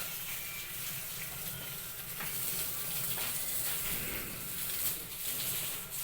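Steady hiss of running water, like water poured or sprayed onto sawdust to wet the substrate mix, with a few faint knocks.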